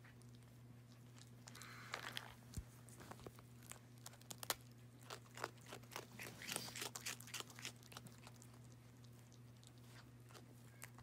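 A raccoon chewing and crunching a crunchy snack held in her paws: a run of faint, irregular crunches and bites.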